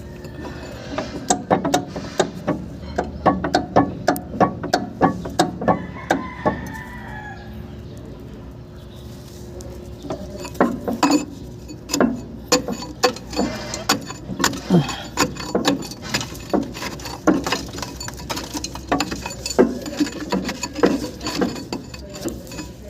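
Repeated metallic knocking and clunking from a HOWO truck's worn V-rod (V-shaped torque rod) joint, in quick irregular runs of two or three knocks a second, pausing for a few seconds midway, over a steady low hum. The knocking is the sign of play in the V-rod that needs repair.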